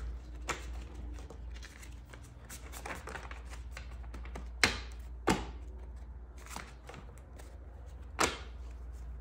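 Tarot cards being shuffled and handled: a faint rustle broken by about five short sharp clicks of the cards, the loudest about halfway through and another near the end, over a steady low hum.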